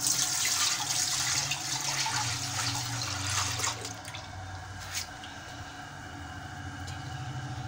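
Milk pouring from a plastic pouch into an empty aluminium pressure cooker, a splashing pour that stops about four seconds in.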